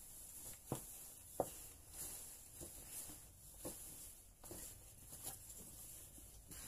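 Curtain fabric rustling as it is handled and pulled across a sewing machine table, with a series of soft, uneven knocks.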